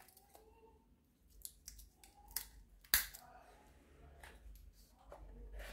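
Metal wristwatches and bracelets clicking and clinking as they are handled and set down, a few short sharp clicks with the loudest about three seconds in.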